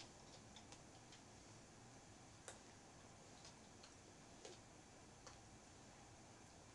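Near silence: faint room tone with a few soft, irregularly spaced clicks and taps, the sharpest about two and a half seconds in.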